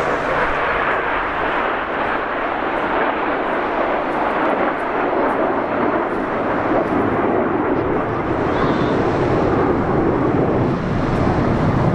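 Jet noise from BAE Hawk T1 jet trainers in display flight: a steady rushing noise that gets heavier in the low end about two-thirds of the way through.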